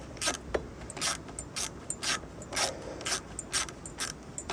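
Ratcheting hand tool being worked in short strokes, tightening the screws of a solar panel mount, with a sharp ratchet burst about twice a second.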